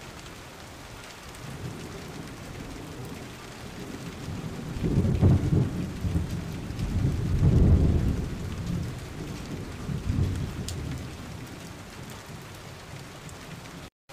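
Steady rain with a long roll of thunder that builds, peaks in the middle and dies away.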